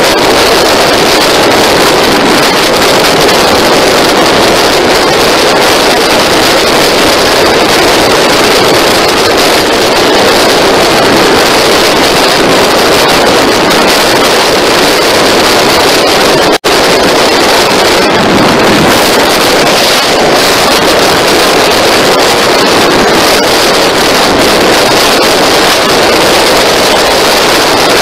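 Sport motorcycle riding at steady speed: a loud, even rush of wind on the microphone mixed with engine and road noise. The sound cuts out for an instant a little over halfway through.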